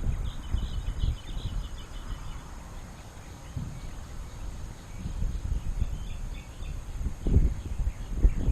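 Outdoor ambience: uneven low rumbling of wind on the microphone, with faint high bird chirps.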